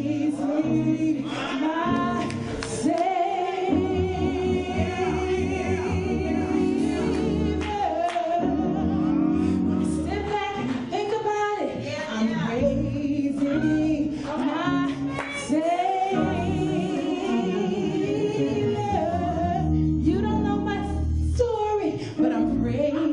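A woman singing a gospel solo into a microphone, her held notes wavering with vibrato and bending through runs, over an accompaniment with steady low bass notes.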